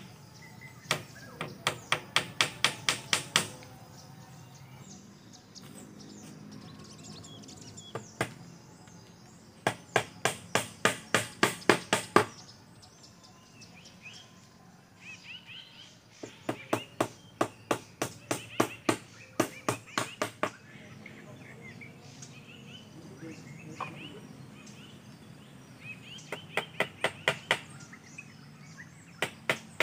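A hammer knocking on bamboo fencing in quick runs of blows, about three to four a second, four runs with short pauses between them, as the bamboo fence is built.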